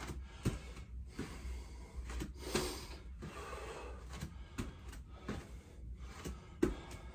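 A man breathing hard from exertion, in quick, short breaths about two a second with one longer breath about two and a half seconds in.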